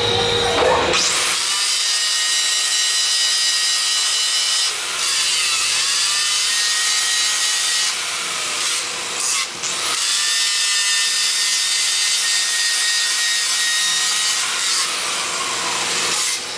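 Handheld angle grinder with a yellow abrasive disc grinding the surface of a steel crankshaft: a steady motor whine under a harsh rasping hiss. The motor's pitch sags and recovers a few times as the disc bites into the metal.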